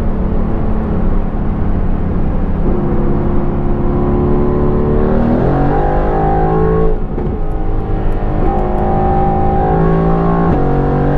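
Mercedes-AMG GT R Pro's twin-turbo V8 with a Frequency Intelligent straight-pipe exhaust, pulling at Autobahn speed. A downshift about five seconds in makes the revs jump. The engine then pulls harder with rising pitch, and an upshift near the end drops the revs again.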